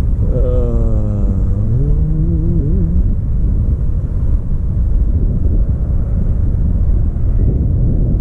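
Wind buffeting the microphone on a slope, a steady low rumble. In the first three seconds a pitched whine sweeps down in pitch, then turns up briefly before fading.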